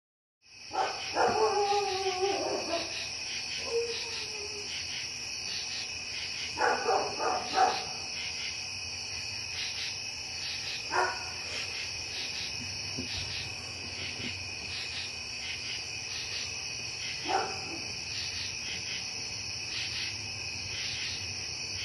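Steady high-pitched chorus of night insects, with a dog barking several times: a run of barks near the start, another cluster about seven seconds in, and single barks around eleven and seventeen seconds in.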